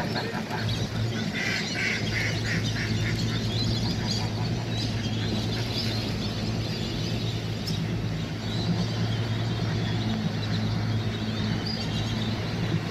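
A large gathering of ducks and other waterfowl calling, a dense chorus of quacks and honks that is busiest in the first few seconds, over the steady low hum of a boat's motor.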